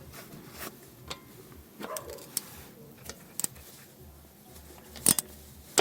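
Scattered metallic clicks and clinks of a wrench working loose the 12 mm bolt on a car's front brake line, at irregular intervals, with the sharpest clicks about five seconds in and at the very end.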